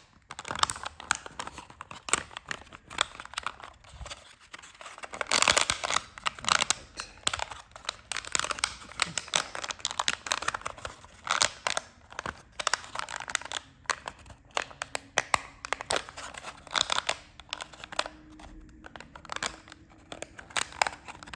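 3D-printed plastic strips being bent, slotted and folded together by hand: a busy run of small clicks, rustles and crinkling, heaviest about five to six seconds in.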